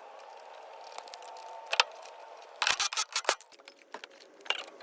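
Clicks and metallic rattles from tools and parts being handled while working on a car: one sharp click about two seconds in, then a quick cluster of clicks and rattles about three seconds in, over a faint steady hum.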